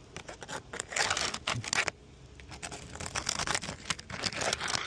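Asphalt shingles being pried up with a seal-breaker bar: crackling, tearing scrapes as the shingle sealant strips let go, in two stretches, about a second in and again from about three seconds in.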